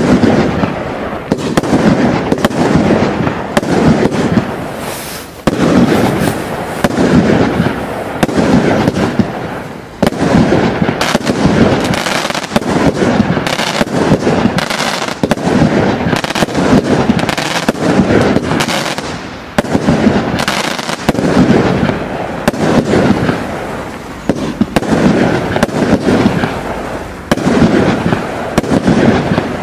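Noisy Neighbours compound firework cake firing a rapid, continuous barrage: shot after shot of launch thumps and bursting stars with crackle, broken by a few brief lulls.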